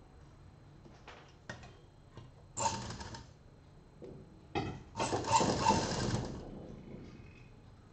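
Sewing machine stitching piping onto a fabric scrub-cap piece in two bursts: a short run, then a longer one of about a second and a half, after a few light clicks.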